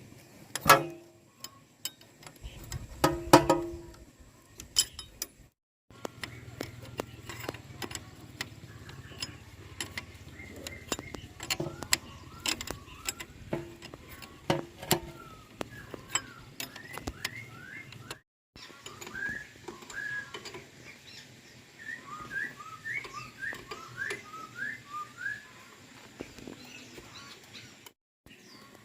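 Knocks, clinks and clicks of tools on metal parts, with two loud ringing clanks near the start. Small birds chirp in short rising notes through the later part.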